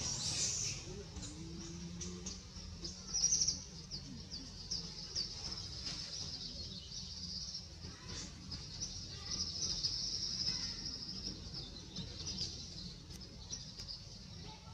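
Wild birds chirping over a steady high-pitched drone, with one louder call about three seconds in.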